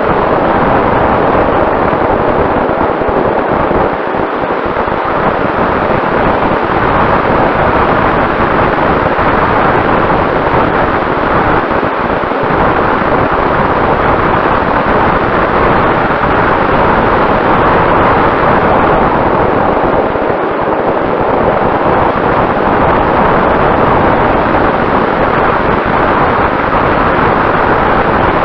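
Vehicle moving at speed: a steady, loud rush of wind and running noise with a faint constant hum beneath it.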